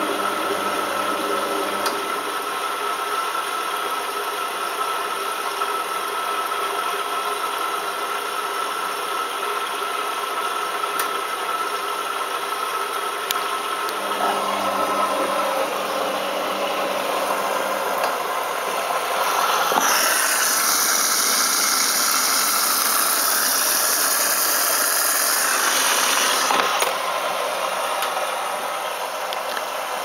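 Balay T-8295 front-loading washing machine in a wash cycle, its drum turning with a steady mechanical hum. About two-thirds of the way through, a loud hiss of water filling starts suddenly and stops sharply some seven seconds later, as the machine takes in more water.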